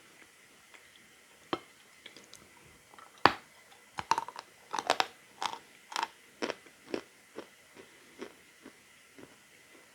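A person biting into a lump of edible chalk and chewing it with crisp crunches: a few light crunches, one sharp loud bite about three seconds in, then steady chewing crunches about two a second that gradually soften.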